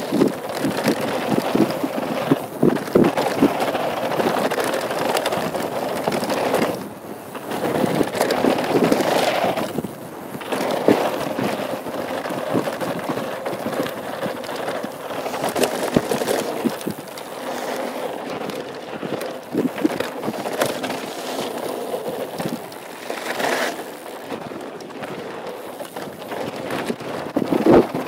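2013 Norco Truax hardtail mountain bike rolling fast down a dirt and gravel trail: steady rushing tyre and air noise with many quick rattling clicks and knocks over the bumps. The noise eases briefly twice.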